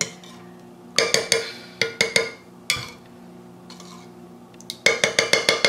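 A metal spoon clinking against the side of a glass measuring cup as it stirs thick liquid soap. There are a few scattered clinks, then a quick run of about seven clinks near the end.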